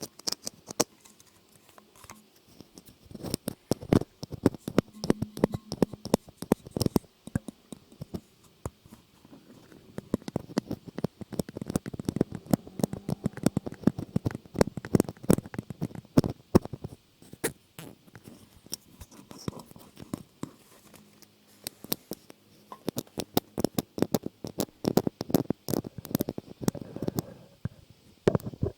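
Close-miked ASMR trigger sounds: dense, irregular tapping and scratching clicks that come in flurries with short lulls.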